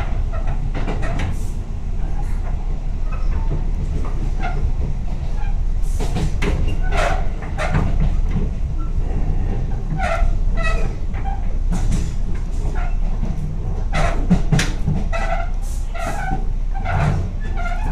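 Tobu 8000 series electric commuter train running, with a steady low running noise and irregular clusters of short creaking squeals from the gangway connection between cars. The uploader flags this creaking as abnormal and wonders whether the 8000 series always makes it.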